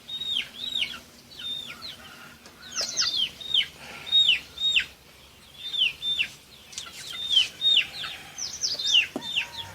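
Birds chirping: repeated short, high chirps that fall in pitch, two or three each second.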